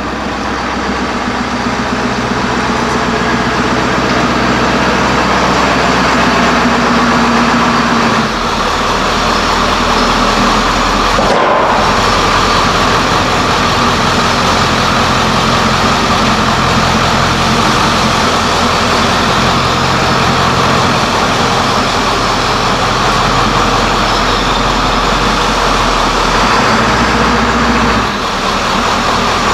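1995 Ford E-350's 7.3 Power Stroke turbo-diesel V8 running as the van drives slowly up to and into the shop, getting a little louder over the first few seconds. The engine is running on a replacement injector driver module after failing with the old one.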